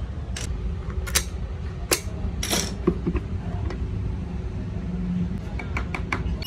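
Scattered sharp clicks and knocks of lead-acid battery plates and separator sheets being handled and set into a plastic battery case, with a cluster of small ticks near the end, over a steady low rumble.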